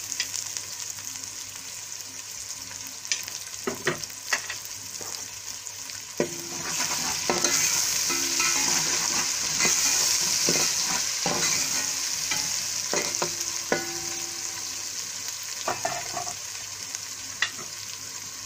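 Whole cumin, dried red chillies, garlic and lemon pieces sizzling in hot oil in a steel pot, stirred with a metal spoon that clinks against the pot now and then. The sizzle grows louder about seven seconds in while it is stirred.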